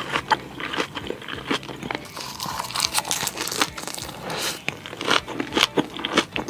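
Close-miked eating sounds: crunchy bites and chewing, an irregular run of crisp clicks and crunches.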